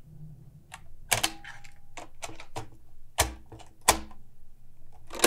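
A run of sharp, irregular mechanical clacks, about fifteen in all, with two heavier strikes a little past the middle.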